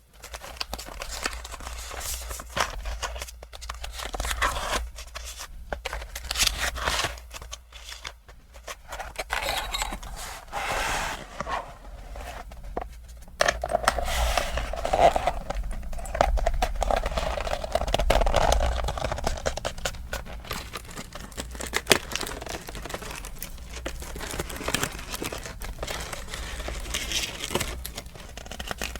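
Packaging crinkling and rustling as items are unwrapped and handled, with irregular light scrapes and taps throughout.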